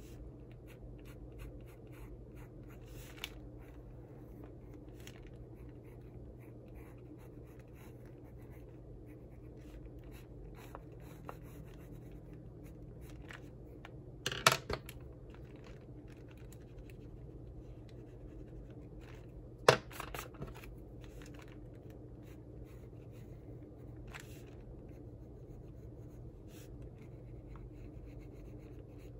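Pencil scratching lightly on paper in short strokes as a sketch is drawn. Two sharp knocks break in, one about halfway through and another about five seconds later, over a steady low hum.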